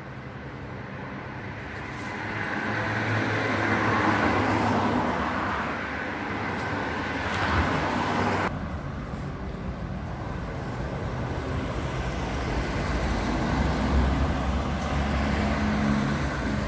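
Road traffic on the street: a vehicle passing, its noise building over the first few seconds and dropping off sharply about halfway, then a steadier hum of traffic.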